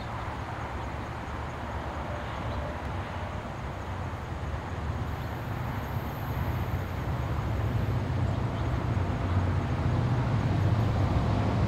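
Diesel locomotives of an approaching freight train: a low engine hum and rumble growing steadily louder as the train comes closer.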